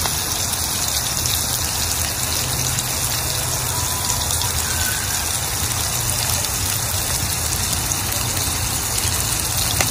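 Shrimp and garlic sizzling in hot oil in a frying pan, a steady hiss.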